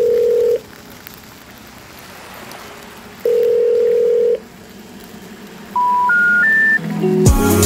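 Telephone signalling tones: a steady low tone about a second long, sounded twice, then three short beeps stepping up in pitch, the special information tone that comes before a call-failure announcement. Music starts near the end.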